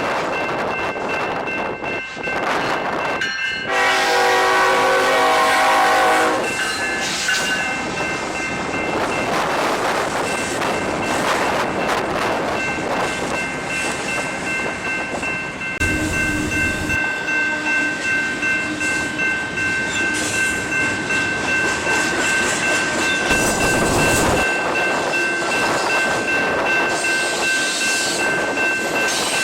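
BNSF train horn sounding one long blast about four seconds in, then the train rolling past with wheels clattering on the rails and a steady thin high squeal.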